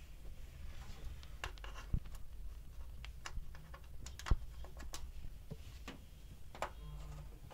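A screwdriver tip tapping and scraping on the sheet-steel back of a PC power supply as the red voltage-selector slide switch is pushed over: a scatter of small clicks, with the loudest click about four seconds in.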